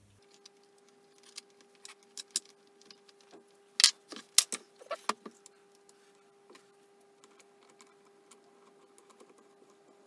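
Small steel parts of a Myford ML10 lathe tailstock clicking and clinking as they are handled and fitted together by hand during assembly, with a cluster of sharper clinks about four to five seconds in. A faint steady hum runs underneath.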